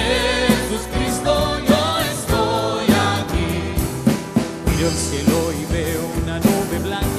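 Live band playing a Spanish-language worship song, with drums, bass guitar, acoustic guitar and keyboard under a sung melody.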